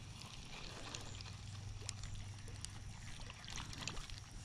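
Spinning reel being cranked to retrieve the lure: a faint, steady low whir with a few light clicks.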